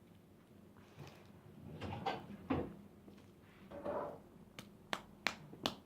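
Objects being handled: scattered rustles and knocks, then a quick run of sharp clicks near the end.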